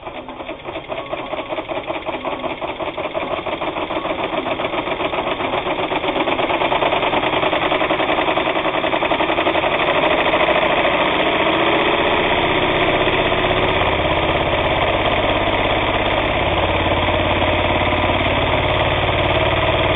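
Vintage Japanese-made, all-steel gear-drive sewing machine stitching flannel: its rapid, even stitch rhythm speeds up over the first several seconds, then runs steadily at full speed.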